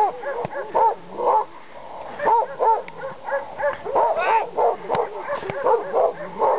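Central Asian Shepherd Dog (alabai) barking in a rapid series, two or three barks a second with a short lull partway, the aggressive barking of a leashed dog lunging at a decoy in protection work.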